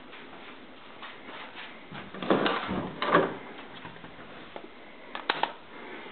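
A door being handled and opened in a small room, with two loud knocks, then a quick pair of sharp clicks a little after five seconds in as a light switch is flipped on.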